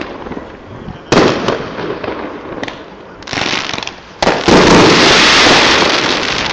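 Fireworks display: aerial shells bursting with a sharp bang about a second in and another just after four seconds. The second burst runs on into a loud, dense crackle that fades over about two seconds.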